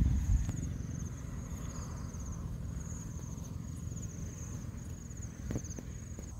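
Insects trilling steadily in the grass, a high pulsing chirr that runs on without a break, over a low rumble that is loudest in the first half-second, and a faint knock about five and a half seconds in.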